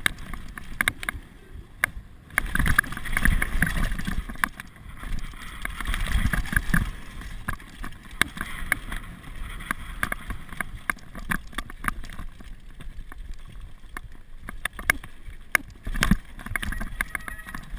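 Downhill mountain bike rattling over a rough dirt and rock trail: tyres crunching on gravel, with frequent sharp knocks from the bike and a low wind rumble on the camera microphone. The rattling grows louder over the roughest stretches a few seconds in.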